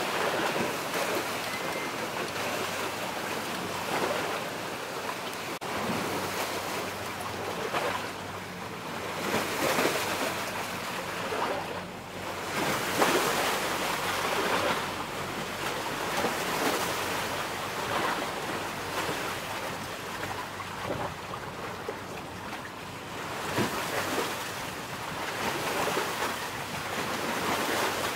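Sea waves washing in and out, swelling and fading every few seconds, with some wind on the microphone.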